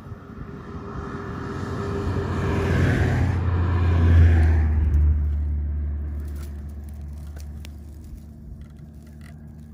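A road vehicle passing by: engine and tyre noise build up, are loudest about four seconds in, then the low engine hum fades away slowly. A few faint clicks come in the second half.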